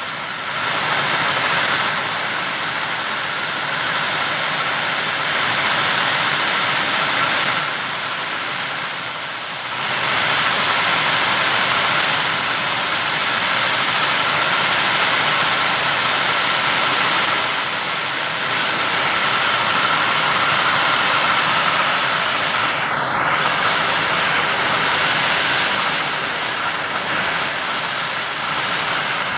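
Blowtorch flame hissing steadily. It is briefly quieter about eight seconds in, then back to full strength.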